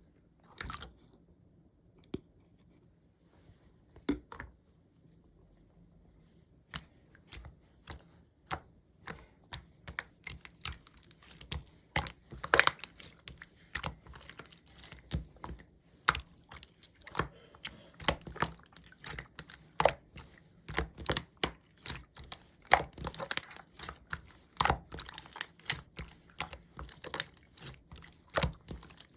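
Slime being squished and stretched by hand, giving sticky popping and crackling clicks: only a few scattered pops at first, then a quick, irregular run of them from about seven seconds in.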